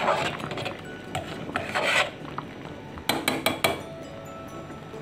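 Metal kitchen tongs scraping and clinking against a stainless steel pot as they nudge boiling pempek dumplings loose from its bottom and sides. There are scraping strokes near the start and about two seconds in, then a quick run of clinks a little after three seconds.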